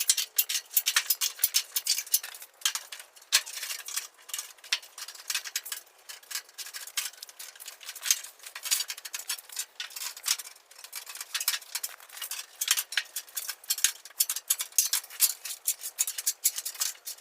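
Thin sheet-steel roofing trim being worked by hand, its edge bent over: a dense, irregular run of sharp clicks and crinkles, with little low end.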